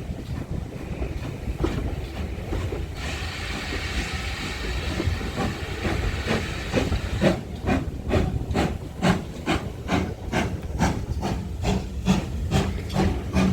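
GWR Manor-class 4-6-0 steam locomotive 7828 Odney Manor standing and venting steam after a hard run: a steady hiss that swells into a stronger hiss about three seconds in and eases off a few seconds later, followed by a run of sharp regular knocks, about two a second.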